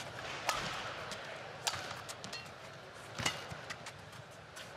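Badminton rally: rackets striking the shuttlecock, three sharp smacks about a second and a half apart.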